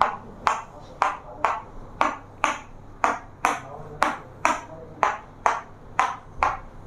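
Sharp ticks or taps repeating at a steady rate of about two a second, each with a short ringing tail.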